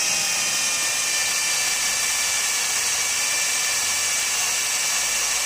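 Electric drill running steadily as a freshly sharpened twist bit bores through a steel plate about 5 mm thick, with a continuous high motor whine.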